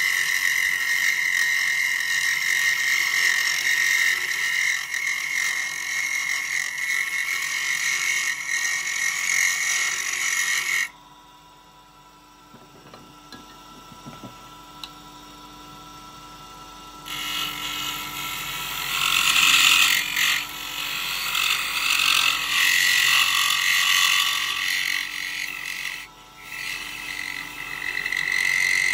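A wood lathe spins a small piece of pale wood while a skew chisel shears it: a steady, high-pitched scraping cut. About eleven seconds in the tool comes off and the cutting stops suddenly, leaving only the lathe running quietly. Some six seconds later a smaller pointed tool starts cutting again, rougher and more uneven.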